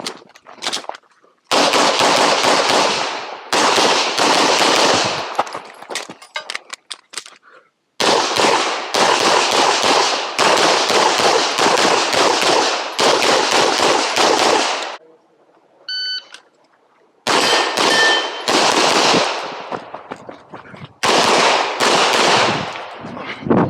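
Glock pistol fired in rapid strings of shots, the reports running together with echo, broken by two pauses of a couple of seconds about five and fifteen seconds in. A short ringing tone sounds during the second pause.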